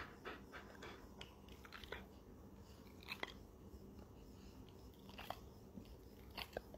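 Rottweiler panting softly in quick, even breaths, about three or four a second, that stop about a second in, followed by a few faint, scattered mouth clicks.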